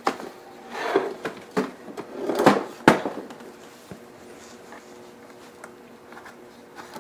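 Plastic cup holder being worked back into a Graco Extend2Fit car seat: rustling and scraping against the seat fabric and plastic shell, ending in a sharp click just before three seconds in, then only faint handling.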